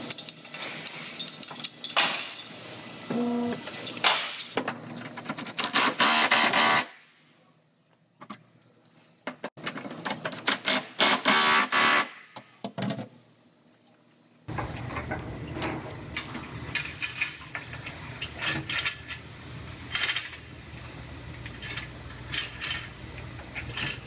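Collision-repair pulling setup: a Milwaukee cordless impact wrench hammers in short bursts as it tightens a pulling clamp onto the rear body panel, with metal clanks of clamps and chain. About halfway through, a steady low hum with scattered clanks takes over as the frame machine's chain is pulled tight.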